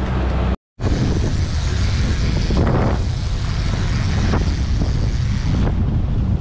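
Yamaha 150 outboard motor running with the boat under way, mixed with wind buffeting the microphone and water rushing in the wake. A brief cut to silence comes less than a second in.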